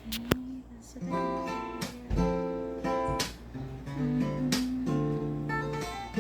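Music: an acoustic guitar strumming chords at a steady, unhurried pace.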